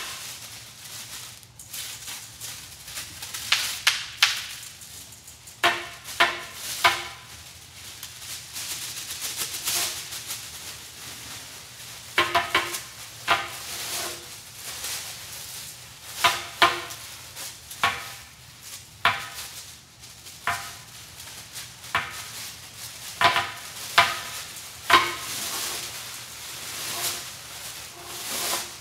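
Stiff paper rustling and crackling as it is handled and cut, with sharp metallic snips and clacks of scissors. The snips come singly and in quick clusters of two or three.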